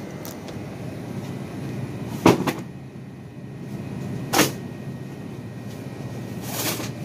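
Two sharp clacks about two seconds apart, the first a quick double, over a steady low hum, with a softer rustle near the end.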